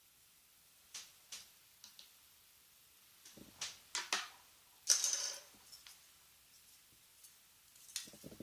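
Small plastic clicks and scrapes of a Jaguar car-alarm key fob being handled and its case taken apart. There are a few sharp clicks about a second in, a quick run of clicks a little later, a half-second scrape past the middle and more clicks near the end.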